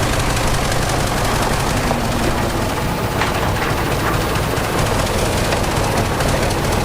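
Heavy diesel earthmoving machine running steadily under load, with a fast, continuous rattling clatter over the engine's low drone.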